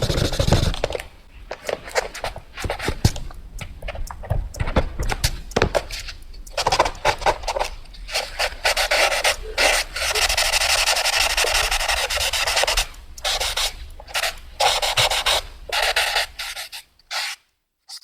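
Pencil drawing fast on paper: quick scratchy strokes broken by short pauses, with one longer unbroken stretch of scribbling about ten seconds in. The strokes stop just before the end.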